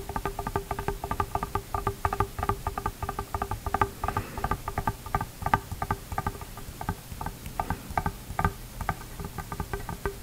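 Long fingernails tapping quickly on a clear plastic snorkel, a steady run of light, clicky taps, several a second, each with the same hollow ring.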